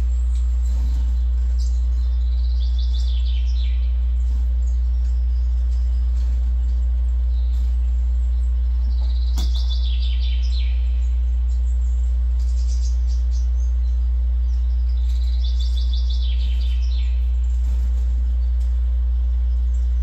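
Bird songs from a bird video playing through computer speakers: three falling trills, each about a second long and roughly six seconds apart, over a loud steady low hum.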